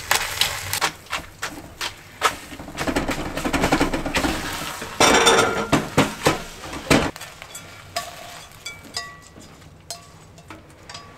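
A wooden spatula and chopsticks knocking and scraping against a metal wok as eggs are stirred with their shells. In the last few seconds, lighter clinks and scrapes follow as the eggs are pushed from the tilted wok into an enamel bowl.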